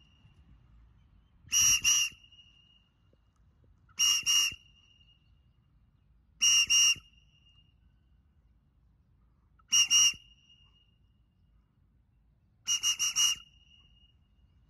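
A hand whistle blown in short, sharp toots, two to four at a time, five times about every two and a half seconds: a recall signal calling a pet bird back home.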